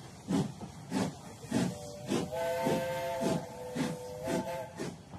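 Steam locomotive pulling away: evenly spaced exhaust chuffs, about one every 0.6 seconds. A little over two seconds in, its chime whistle sounds a three-note chord, held for about two and a half seconds.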